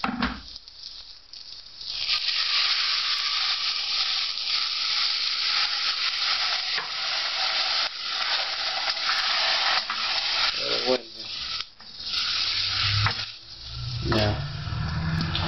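Rice already fried with garlic in a hot steel pot sizzling and hissing as boiling water is added to it, stirred with a wooden spoon. The sizzle starts about two seconds in, holds steady for some eight seconds, then breaks up and fades.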